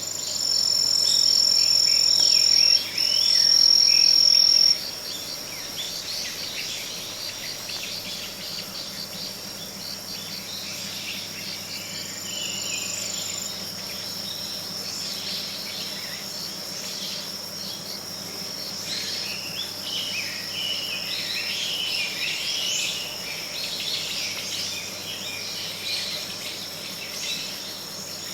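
Insects singing in a steady high-pitched trill, loudest for the first few seconds with a brief break near 3 seconds, then carrying on more softly. Scattered short chirps run over it.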